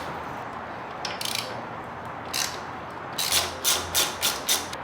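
Hand ratchet wrench clicking as it works a bolt loose: a couple of short strokes, then a quicker run of about six near the end.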